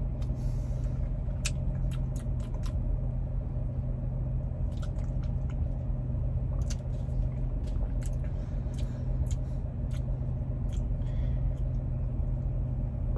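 Steady low hum, with scattered small clicks and handling sounds as a milkshake is sipped through a straw.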